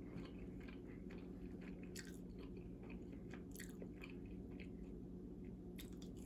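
A person chewing food close to the microphone: faint, irregular crunches and wet mouth clicks, a few each second, over a steady low hum.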